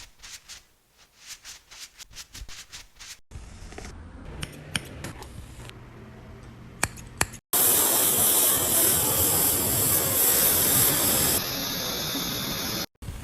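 Hairdressing sounds in several short edited takes: light clicks and snips, then a loud steady hiss lasting about four seconds, followed by a quieter steady hiss.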